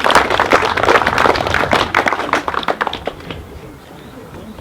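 Crowd applauding, the clapping dying away about three seconds in.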